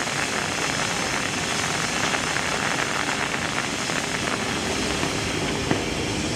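Steam locomotive C57 1 giving off a steady hiss of escaping steam, loud and even, with no exhaust beats.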